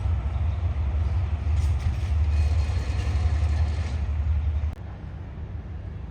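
Heavy low rumble of a train at a railway station, steady, then cutting off abruptly about three-quarters of the way through and leaving quieter background noise.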